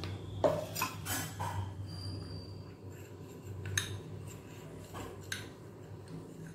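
Steel spoon clinking and scraping against a small glass bowl while stirring dry spice powder. There are several sharp clinks, the loudest about half a second in.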